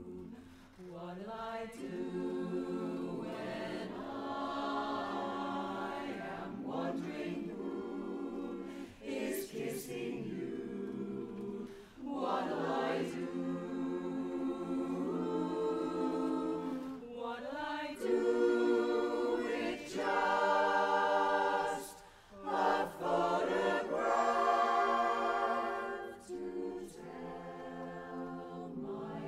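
Mixed-voice barbershop chorus singing a cappella in close four-part harmony: held chords sung in phrases with short breaths between them, growing louder in the second half.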